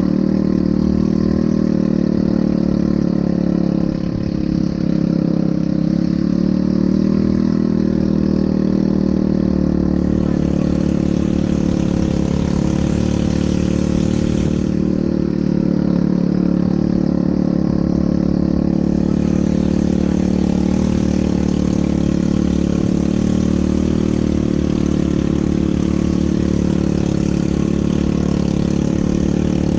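ATV engine running at a steady pace while being ridden, a continuous drone with a rough low rumble underneath.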